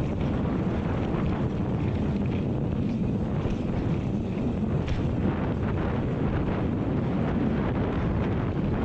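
Wind buffeting the microphone of a mountain bike riding down a dirt trail, over the steady rumble of the tyres on the ground and small rattles from the bike.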